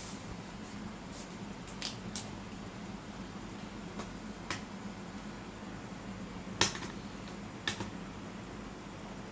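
Steady low hum with a handful of short, sharp clicks, the loudest about two-thirds of the way in.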